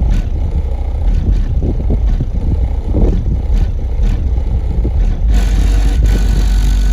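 Music played through a single 10-inch subwoofer in a fourth-order bandpass enclosure, heard as loud, deep bass with little treble above it. About five seconds in, a brighter hiss fills in over the bass.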